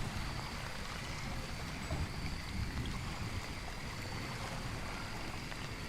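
Background rain-and-nature ambience: a steady, even rush with a low rumble and faint thin high tones.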